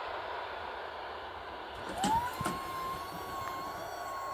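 Level-crossing barrier mechanism: about two seconds in a clunk and a few clicks, then a whine that rises in pitch and settles into a steady tone as the boom lifts, over the fading noise of the passing train.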